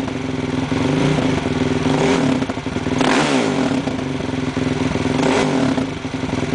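Husqvarna SMR 510's single-cylinder four-stroke engine idling through an Akrapovic titanium Evolution exhaust, blipped on the throttle three times in quick rises and falls, the strongest about three seconds in and past five seconds.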